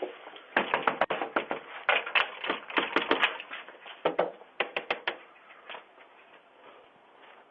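A rapid, irregular run of sharp taps and clicks for about five seconds, thinning out near the end.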